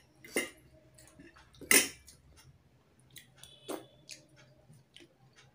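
Eating rice and curry by hand: a scatter of short, wet smacking and chewing sounds as fingers work the food and lift it to the mouth. The loudest comes a little under two seconds in.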